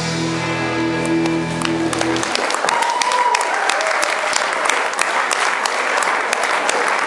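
A country line-dance song ends on a held chord about two seconds in, and the audience applauds through the rest.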